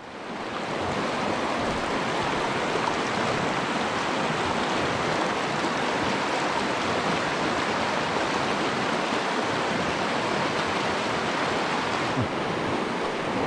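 Steady rush of water from a small river rapid, fading in over the first second.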